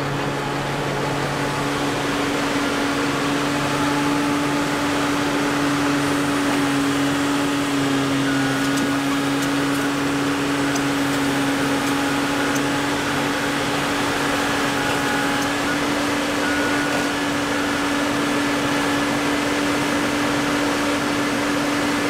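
Kobelco tracked excavator's diesel engine running steadily under load as the machine drives across the culvert, a constant drone with one steady humming tone.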